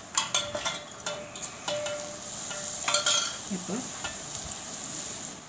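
Hot oil ladled onto ground spices and salt sizzling, with a steel ladle scraping and clinking against a steel plate; sharp clinks come just after the start and again about three seconds in.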